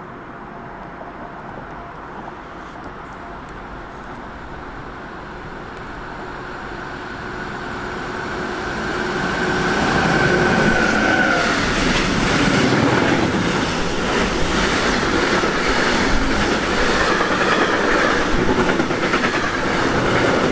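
A class 189 electric locomotive hauling a container freight train approaches and passes. Its steady whine grows louder and drops in pitch as it goes by about ten seconds in, followed by the continuous rumble and clickety-clack of the container wagons' wheels on the rails.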